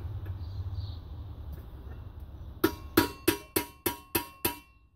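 Seven quick, ringing metal-on-metal taps, about three a second, starting a little past halfway: a hammer striking a steel bolt ground to a flaring point to spread and set a loose bicycle fender rivet.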